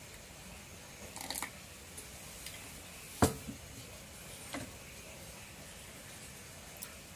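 Light clicks and taps of a spoon and wooden cup being handled on a wooden table, with one sharp knock a little over three seconds in.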